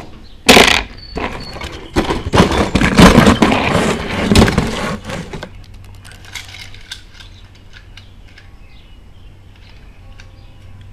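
Metal die-cast toy cars clattering against one another as a hand rummages through a box of them: a sharp clack about half a second in, a dense rattling clatter for a few seconds, then only scattered light clicks.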